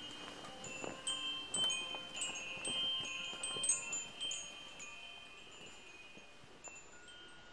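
Chimes ringing: a run of irregular strikes with overlapping high, clear metallic tones, thinning out about halfway through and fading away toward the end.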